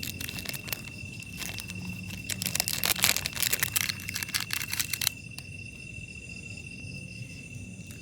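Close crinkling and crackling handling noise, thickest about two to five seconds in, that stops suddenly a little after five seconds. A steady high insect trill runs underneath.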